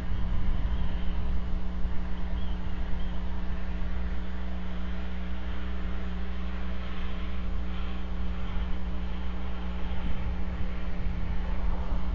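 Steady low rumble with a constant electrical hum underneath, the ambient background picked up by a bald eagle nest camera's microphone; the sitting eagle makes no call.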